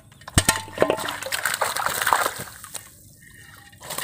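Water sloshing and splashing as a string of hooped mesh lú fish traps is hauled out of a pond, with scattered clicks and knocks. The sloshing is busiest in the first two and a half seconds, then eases off.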